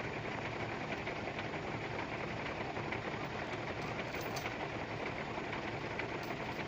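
A truck's engine running steadily with road noise, at an even level throughout.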